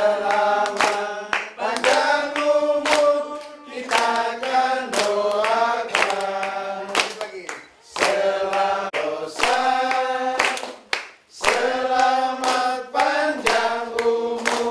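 A group of people singing together and clapping their hands along in time.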